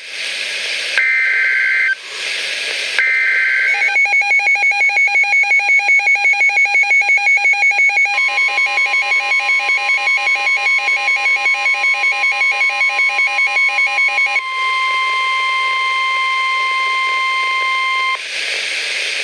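Weather radio Emergency Alert System alert: two short bursts of warbling SAME header data tones, then rapid pulsing beeps from the receiver's alarm, over which the steady 1050 Hz NOAA Weather Radio warning tone starts and then sounds on alone for several seconds before cutting off. This is the alert that opens a broadcast severe thunderstorm warning.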